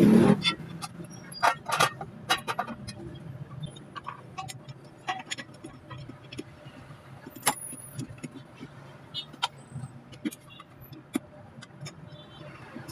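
Irregular small clicks and clinks, like tools and small metal parts being handled on a workbench, over a steady low hum; the handling is busiest in the first two seconds.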